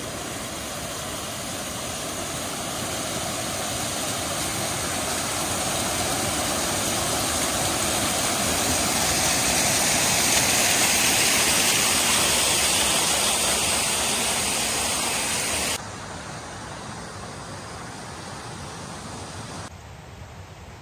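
Small waterfall cascading over rocks: a steady rush of water that grows louder on approach, loudest about ten seconds in. It drops suddenly to a much fainter rush about sixteen seconds in.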